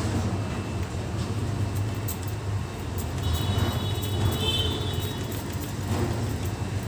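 Cloth rubbing on the glass top of a dining table, with a high squeak lasting about two seconds midway, over a steady low hum.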